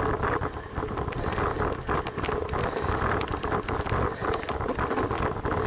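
Bicycle rolling over a gravel track: tyres crunching and rattling on loose stones, with wind rumbling on the microphone.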